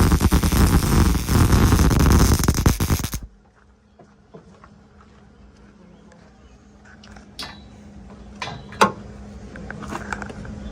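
Welding arc crackling steadily during tack welding, stopping abruptly about three seconds in. After that only a faint steady hum and a few light clicks and taps remain.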